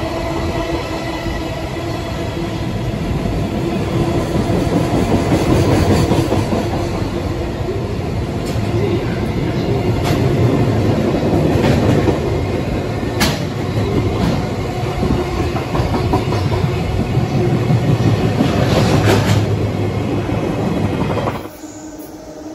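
JR Freight container wagons rolling past close by at speed: a steady wheel-on-rail rumble with clickety-clack and occasional sharp clanks over the rail joints. It stops suddenly near the end.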